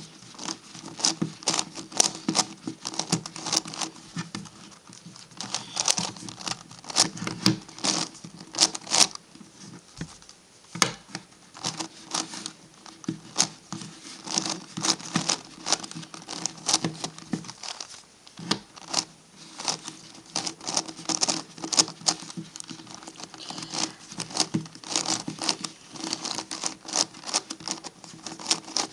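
MF8 Gigaminx plastic puzzle being turned fast by hand: rapid, irregular clicking and clacking of its face layers, in bursts with brief pauses, over a faint steady hum.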